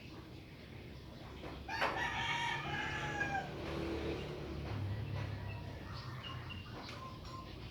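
A rooster crowing once, about two seconds in, the call falling away at its end. Short faint bird chirps follow near the end.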